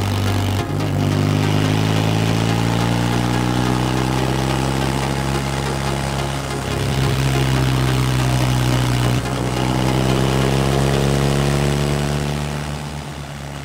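BMW R1150R Rockster's boxer-twin engine running at road speed, its pitch drifting up and down as the revs change. The pitch jumps abruptly about a second in and again around nine seconds in, and the engine gets quieter near the end.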